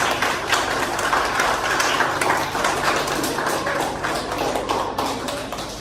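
An audience of schoolchildren and teachers applauding, a dense patter of hand claps that eases off slightly towards the end.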